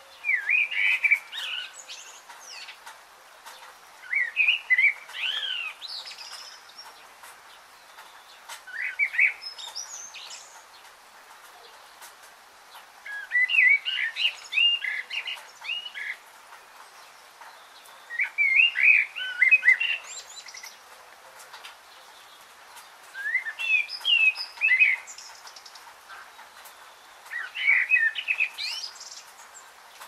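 A songbird singing short, quick, chirpy phrases with rapid rising and falling notes, repeated about every four to five seconds.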